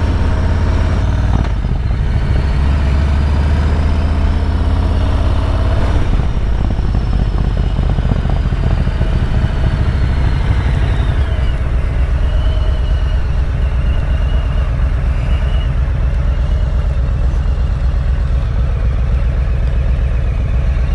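2019 Harley-Davidson Road King's Milwaukee-Eight V-twin running under way through Vance & Hines True Dual headers and 4.5-inch Titan mufflers, a steady deep exhaust note.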